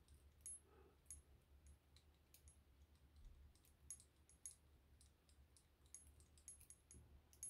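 Faint, irregular small metallic clicks of a lock pick and tension tool working the inside of a steel padlock, a few a second, over a low steady hum.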